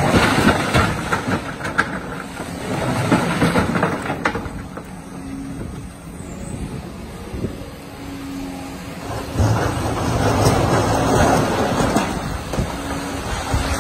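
Large Doosan crawler excavator working in a rock quarry, its diesel engine running steadily. Rock clatters into the bed of an articulated dump truck in the first seconds, and the bucket digs and scrapes through broken rock from about two-thirds of the way in.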